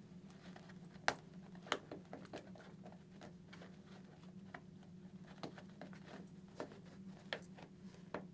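Hands pressing a motorcycle helmet's cheek pad and liner into place at its snaps: faint scattered clicks and rustles of fabric and plastic, with two sharper clicks in the first two seconds, over a steady low hum.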